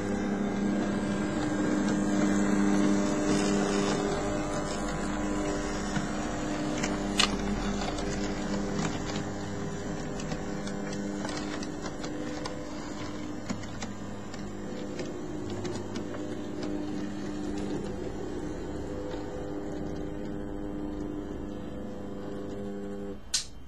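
OO gauge model train running along the track: a steady drone from the running locomotive, with small clicks from the wheels on the track and a sharp click near the end.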